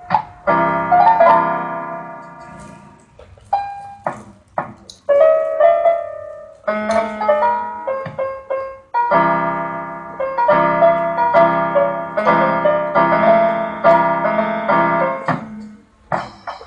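Electronic keyboard with a piano sound, played in chords that strike and fade in stop-start runs. In the gaps, single stray notes sound where a toddler's hands press the keys.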